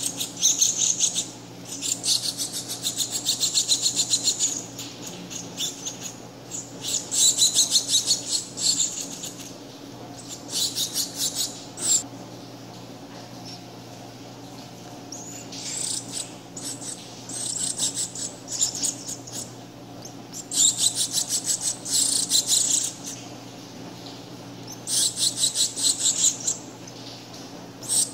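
Shiny cowbird nestling begging for food: bouts of rapid, high-pitched chirps, each a second or two long, coming again every few seconds, with a pause of a few seconds about halfway through.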